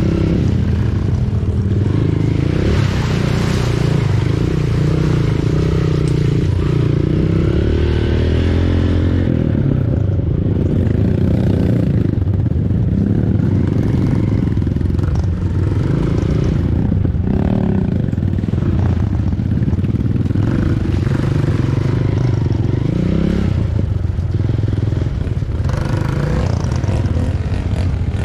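Dirt bike engine running close up, its revs rising and falling over and over as the bike works along a muddy trail.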